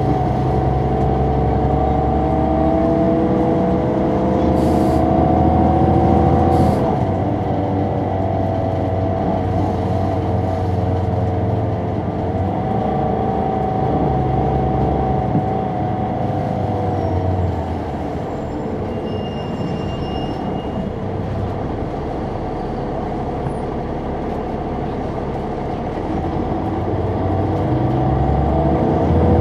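Caterpillar C9 ACERT diesel engine of a 2004 Neoplan AN459 articulated bus, heard on board. It pulls with a rising pitch that drops sharply about seven seconds in at an upshift of its ZF Ecomat automatic transmission, then runs steadily. It settles to a lower level a little past halfway and builds again near the end.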